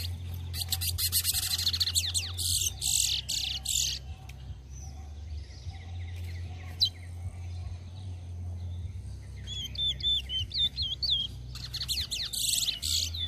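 Caged towa towa (chestnut-bellied seed finches) singing in a head-to-head ramping song contest: a fast, dense twittering warble in the first few seconds and again near the end, with a run of clear repeated upslurred whistles in between. A steady low rumble sits underneath.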